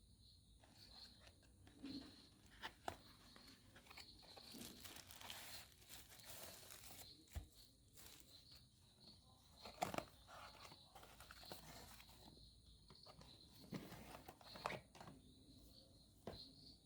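Packaging being opened and handled: intermittent rustling and crinkling with scattered light knocks and clicks, and a longer stretch of tearing or rustling from about four to seven seconds in.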